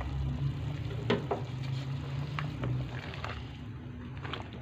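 Chicken broth boiling in a steaming pot: a steady bubbling hiss over a low hum, with a few light clicks scattered through.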